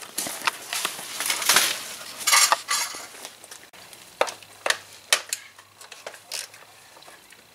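Scraping and rattling handling noise for the first few seconds, then a series of sharp metallic clinks as hand tools work on the bolts of the engine's side cover.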